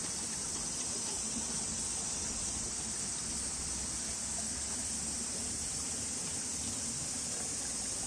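Shallow mountain stream running over rocks: a steady, even rush of water.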